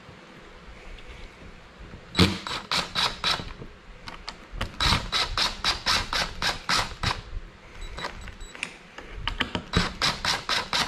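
DeWalt cordless impact driver hammering screws through a pine block into the antler bases. It runs in three bursts of rapid clacking strikes: about two seconds in, again a little before halfway, and near the end.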